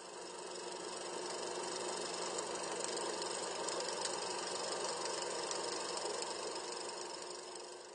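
Old film projector sound effect: a steady mechanical whir with a light rattle that swells up at the start and fades out near the end.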